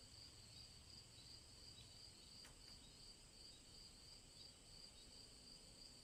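Faint crickets chirping: a steady high-pitched trill pulsing about three or four times a second.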